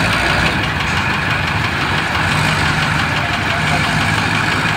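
Heavy diesel engine of the crane-and-excavator equipment running steadily at idle.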